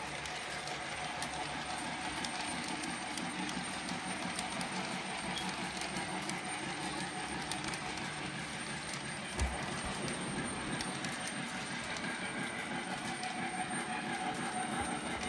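Lionel O-gauge K-Line 21-inch aluminium passenger cars rolling over model track: a steady rumble with scattered clicks from the wheels. A single brief low thump comes about nine seconds in.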